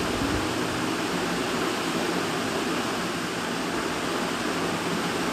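Steady, even hiss with no distinct knocks or tones.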